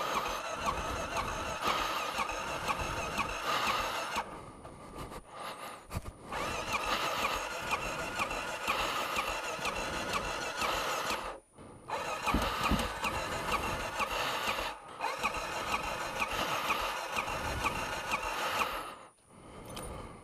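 2012 Honda XR650L's electric starter cranking the cold single-cylinder engine in about four long bursts of several seconds each, with a steady whine, the engine not catching.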